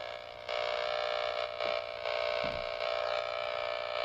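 AnyTone AT-D578UV III Plus mobile radio receiving a distorted, buzzing AM airband transmission through its speaker, dropping out briefly a few times. It is a distant aircraft's signal, too weak to make out.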